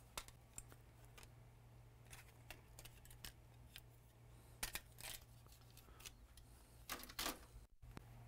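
Faint clicks and clacks of circuit boards being handled while rummaging through a box of spare logic boards, the sharpest ones a little under 5 seconds in and again about 7 seconds in, over a steady low hum.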